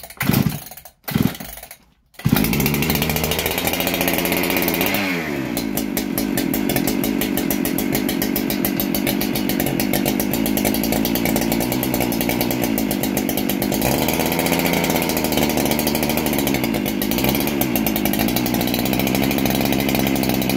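Husqvarna 395XP two-stroke chainsaw being pull-started: a couple of quick cord pulls, then it catches about two seconds in and keeps running, its engine speed rising and falling a few times.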